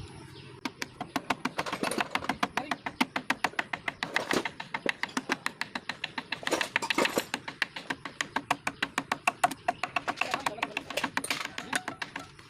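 A rapid run of sharp taps or knocks, about five a second, starting just after the start and carrying on with a few short breaks.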